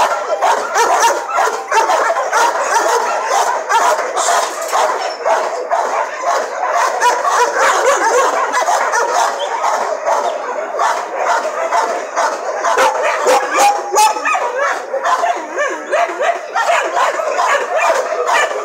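A group of dogs in kennel runs barking and yipping. Their calls overlap continuously, with no pause.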